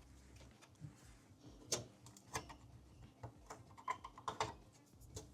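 Scattered light clicks and taps of hands handling desktop computer parts, about a dozen irregular clicks with a cluster in the second half.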